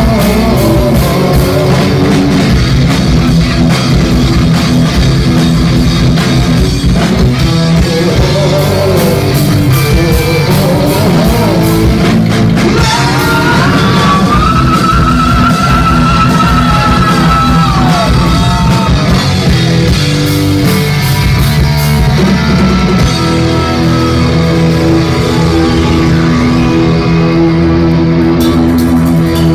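Live heavy metal band playing loud: electric guitars and drums with a singer. Midway a long, wavering high note rises above the band for several seconds.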